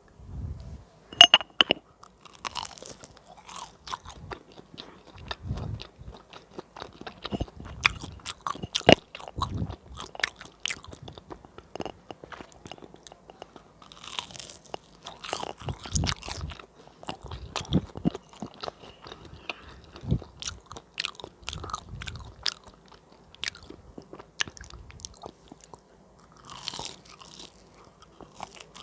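Close-miked biting and chewing of crispy fried banana cake: sharp crunches as the fried batter crust breaks, among softer chewing. The loudest bite comes about a second in.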